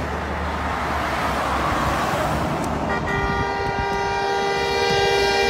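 Passing traffic and tyre noise, then about three seconds in an approaching truck's air horn sounds one long, steady blast that grows louder.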